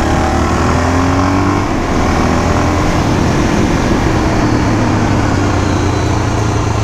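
Suzuki DR-Z400 single-cylinder four-stroke engine running under a ride. Its note slides in pitch during the first couple of seconds, then holds fairly steady under loud rushing wind and road noise on the moving microphone.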